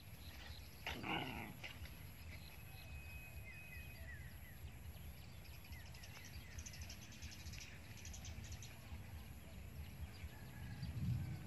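Puppies play-fighting, with one short falling cry from a puppy about a second in; otherwise faint.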